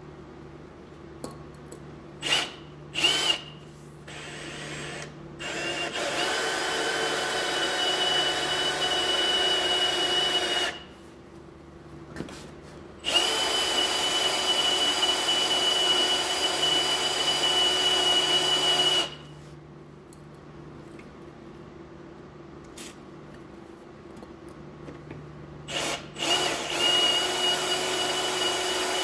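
Electric hand drill running in bursts with a steady high whine, boring a small pilot hole into the centre of a fastener whose head has been ground off. Two quick blips about two and three seconds in, then two longer runs of about five and six seconds, and another starting near the end.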